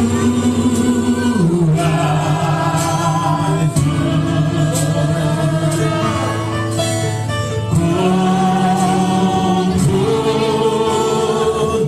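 Christian worship music: voices singing long held notes over instrumental accompaniment.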